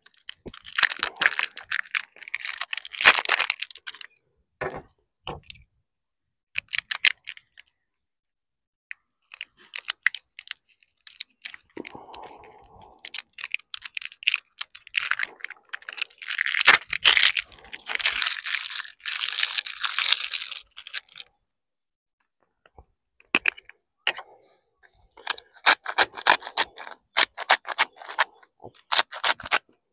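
Hand-held spice grinder being twisted over raw steaks. It makes rapid crunching clicks in several bursts of a few seconds each, with short pauses between them.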